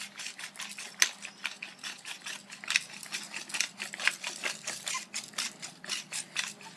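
Pepper grinder being twisted, cracking peppercorns in a steady run of short clicks, about four a second.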